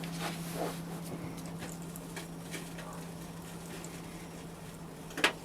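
Fine casting sand being sifted through a sieve onto a mould pattern: faint scattered ticks over a steady low hum, with one sharp knock near the end.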